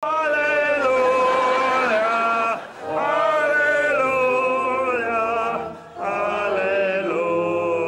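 Church congregation singing a hymn, with men's voices loudest, in long held phrases broken by two short breaths, about two and a half and six seconds in.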